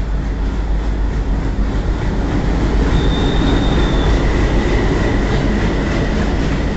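Diesel locomotive rolling slowly past close by with its train, a loud steady rumble that swells as it passes. A thin high squeal comes in briefly about halfway, and a fainter one follows.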